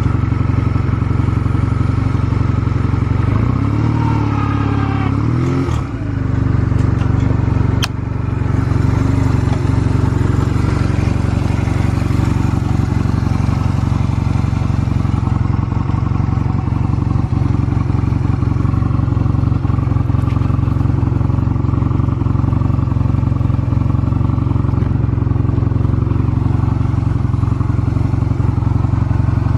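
Honda Rebel 250 (MC13) air-cooled parallel-twin engine idling steadily, its pitch briefly rising and settling about four to six seconds in, with one sharp click soon after. It runs with no abnormal engine noise, as the seller reports.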